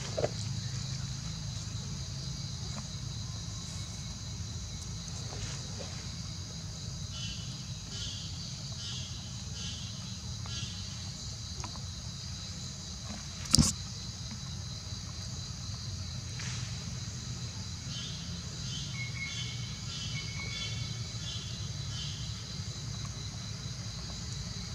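A steady, high-pitched insect chorus, with stretches of rapid pulsed chirping and a low steady hum underneath. One sharp click about halfway through.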